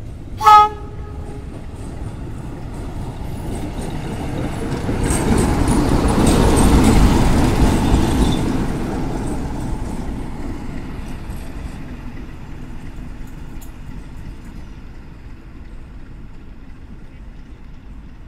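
A short horn toot from a 060-DA class diesel-electric locomotive, then its Sulzer 12LDA28 V12 diesel engine running as the locomotive passes close by. The engine is loudest about six to eight seconds in and fades as it moves away.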